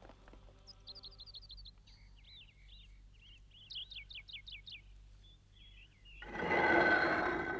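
Cartoon birdsong: short runs of quick, high chirps. Near the end comes a loud grinding scrape, a heavy boulder being shifted off a hidden hatch in the ground.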